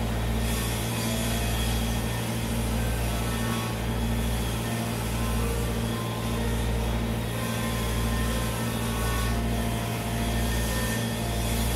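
Steady machine hum with a deep pulse that swells and drops about once a second.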